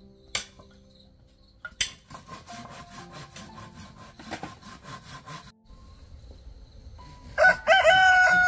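A large knife blade worked against a piece of wood in quick, even strokes, about five a second, after two sharp knocks. Near the end a rooster crows once, loudly, the loudest sound here.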